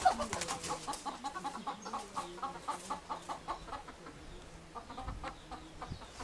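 Hen clucking: a quick run of short clucks, about five a second, for some three seconds, then a few scattered clucks near the end.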